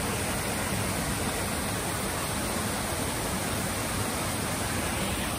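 Small waterfall pouring into a pool: a steady, even rush of falling water.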